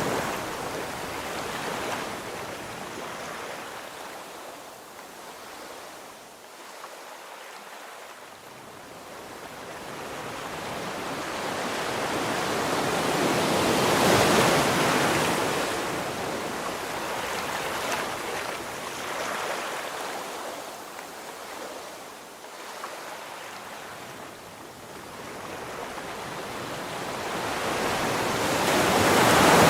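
Sea waves washing in, an even rushing hiss that swells up slowly and dies back, loudest about halfway through and again at the very end.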